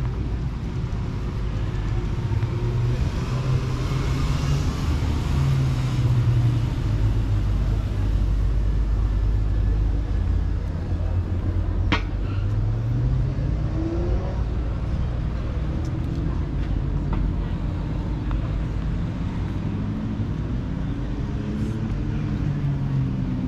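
Street traffic: motor vehicles running and passing, with one engine rising in pitch as it speeds up a little past halfway and a single sharp click around the middle.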